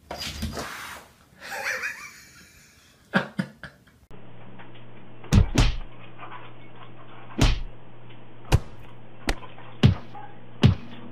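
A cat's paw slapping at a dog's face: a series of sharp smacks and knocks, roughly one a second, over a steady low hum. Before them come a burst of rustling noise and a few lighter clicks.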